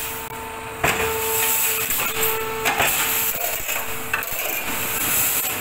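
Olimpia Chiodatrici T30 pallet nailing machine running: a steady mechanical hum with a few sharp knocks and clatter of wood, the loudest about a second in.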